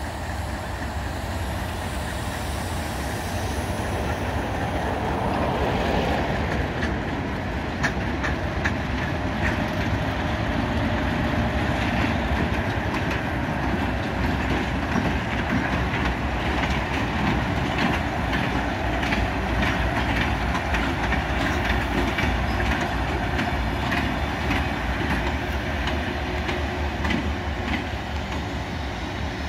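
Diesel locomotives 602, 4834 and B61 running coupled together as they move along the track, their engines giving a steady low rumble. From about seven seconds in, wheels click over the rail joints.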